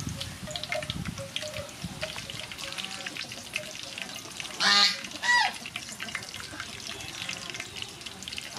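Chicken wings being pressed and turned by hand in a pot of dry breadcrumbs, with a soft crackly rustle. Just before the middle, two loud honking calls come about half a second apart.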